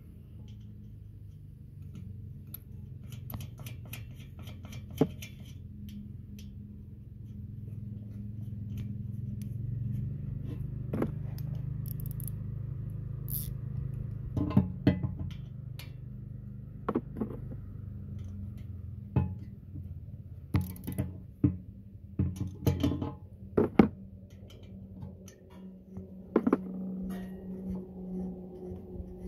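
Metal clicks and clinks of a wrench and nuts on a small engine's carburetor mounting stud. Two nuts are locked together on the stud to unscrew it. The sharp clicks come scattered through the middle and later part, over a steady low hum.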